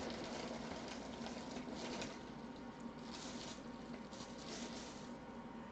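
Faint rustling and light handling of a cardboard box and card packaging, in soft irregular patches with a few small ticks, over a steady low electrical hum.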